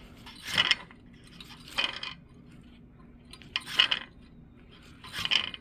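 The alternator pulley of a 2014 Toyota Camry is spun by hand, giving four short metallic clicking rattles about a second and a half apart. The outer pulley stops while its inside keeps turning, which the owner takes for where the car's noise starts: a worn alternator.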